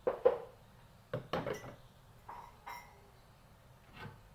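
Metal baking trays clanking and scraping as they are handled: a string of sharp knocks, some with a brief metallic ring.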